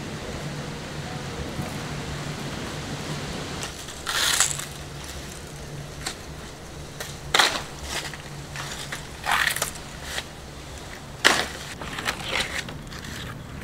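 Dry coconut fronds crunching and rustling in several short, loud bursts, over a steady low hiss.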